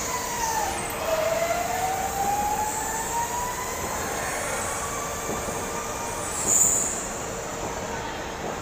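A go-kart passes close by, its whining motor note dropping in pitch as it goes past. The note then climbs steadily for several seconds as the kart accelerates away. A brief high hiss comes about six and a half seconds in.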